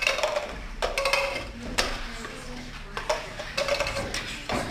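Plastic cups being flicked over and set down on a table in the cup-flipping game: a run of light, irregular plastic clacks and taps.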